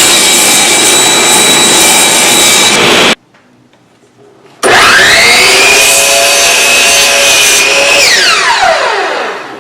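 Power saw cutting wood, which stops abruptly about three seconds in. After a short gap the saw motor spins up with a rising whine, runs steadily, and then winds down with a falling whine near the end.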